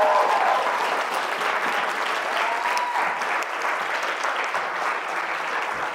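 Audience applauding, a dense, steady clapping that eases slightly after the first second.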